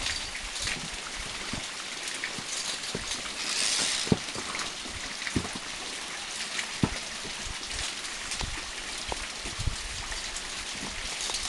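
Steady hiss, swelling briefly about four seconds in, with scattered sharp clicks and knocks from climbers' hands, boots and metal gear against the rock and steel cable of a via ferrata.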